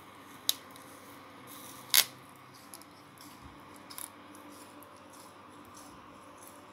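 Short, sharp crunches of teeth biting into a frozen sponge dishcloth: one about half a second in, a louder one about two seconds in, then a couple of faint ones about four seconds in.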